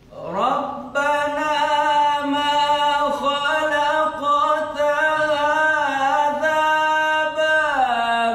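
Solo male Quran recitation (tilawah) sung in maqam style: a single long melismatic phrase of held, ornamented notes in the high jawab al-jawab register of maqam Sikah. The voice swells in with a rising glide at the start and slides down to a lower note near the end.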